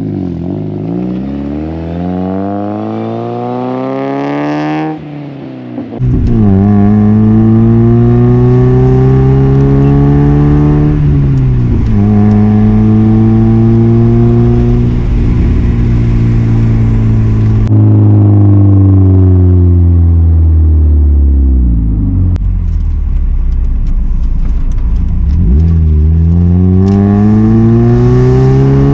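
1992 Mazda Miata's 1.6-litre four-cylinder engine running through an ISR Performance Circuit Spec exhaust and test pipe, accelerating through the gears. Its pitch climbs, drops away and climbs again several times, and the sound gets much louder about six seconds in.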